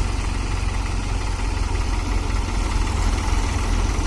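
New Holland tractor's diesel engine running steadily with a deep, even throb.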